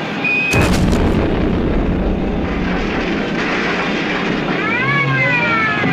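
Film sound-effect explosion of a jettisoned aircraft fuel pod being detonated: a short high tone, then a sudden loud blast about half a second in that settles into a long rumbling roar. Near the end, fire-engine sirens start wailing, rising and falling.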